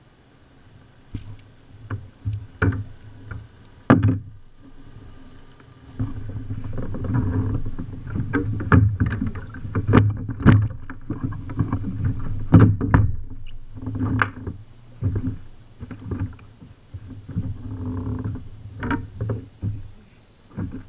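Irregular knocks, thumps and rustling on a plastic fishing kayak and its gear as a caught bass is handled aboard. The sharpest knock comes about four seconds in, and the handling noise is denser from about six seconds in.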